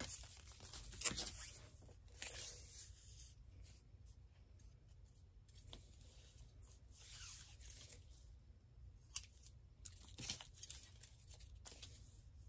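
Scissors snipping strips of thin plastic tablecloth now and then, with the crinkly rustle of the plastic as it is handled and pulled.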